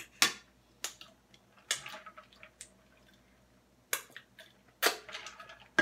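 Wet mouth sounds of eating with the fingers: several short, sharp lip smacks and sucks, spaced irregularly about a second apart.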